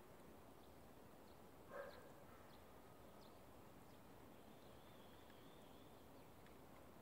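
Near silence: faint outdoor ambience, with one short distant animal call about two seconds in and faint thin high calls near the middle.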